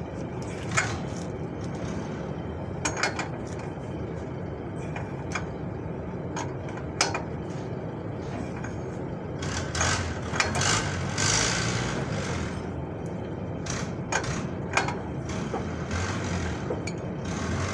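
Scattered metallic clicks and clanks of a ratchet wrench working a nut at the steering knuckle during a tie rod end replacement, over a steady low rumble of vehicles, with a brief hiss about eleven seconds in.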